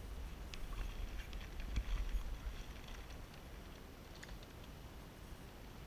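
Light splashing and dripping of water against a float tube, with scattered small ticks over a low rumble of movement on the microphone during the first few seconds.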